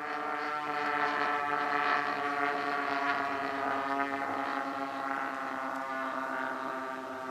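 Twin DLE 20 single-cylinder two-stroke gasoline engines of a radio-controlled Cessna 310 scale model droning in flight. The steady buzzing note drifts slightly lower and fades a little toward the end.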